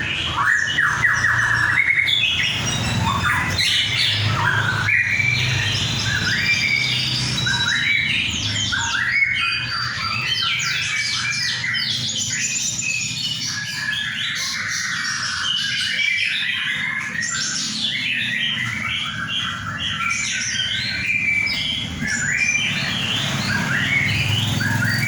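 Several birds calling at once: a dense, continuous chorus of rapid, overlapping chirps, trills and squawks.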